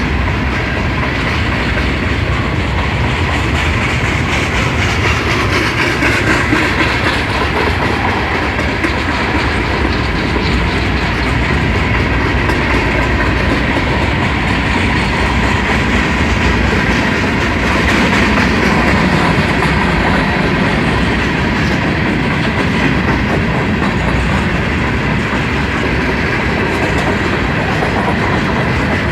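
Long freight train rolling steadily past, its wheels clacking on the rails.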